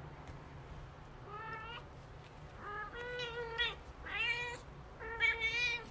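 Young kittens mewing: a series of about five short, high-pitched mews, beginning about a second and a half in.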